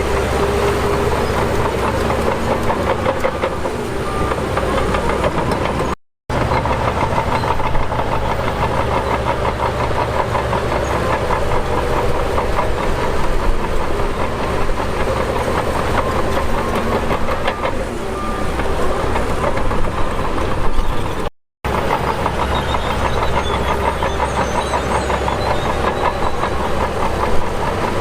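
Heavy diesel engine of a bulldozer running steadily under load, with a fast rhythmic clatter like steel tracks. The sound cuts out completely for a moment twice, about six seconds in and about twenty-one seconds in.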